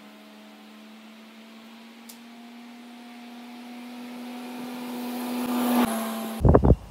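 An engine running at a steady speed with a whine, growing steadily louder. Near the end it is cut off suddenly by loud, irregular low thumps and rumbling.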